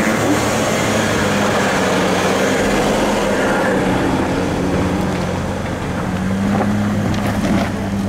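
Jeep Grand Cherokee SUV engine running at low speed as it crawls past over a rough dirt trail, with a steady low hum.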